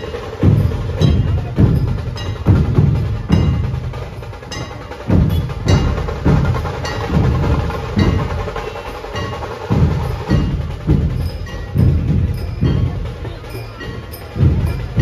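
Procession drums beating a steady, driving rhythm of about two strokes a second, with bright metallic ringing from cymbals or bells on the beats.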